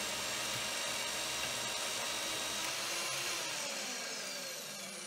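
Vevor portable metal-cutting bandsaw running through a cut in square tube with a steady whine. About three seconds in it is switched off and spins down, its pitch falling away. The blade goes "wong, wong, wong" as its welded seam passes through.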